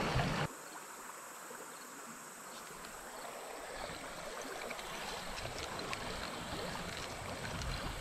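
River water flowing and rippling steadily, close to the microphone.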